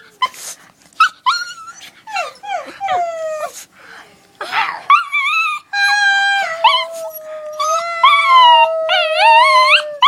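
Pet dog whining in a series of short cries that fall in pitch, then breaking into long howls from about six seconds in, one held steady and another wavering up and down over it.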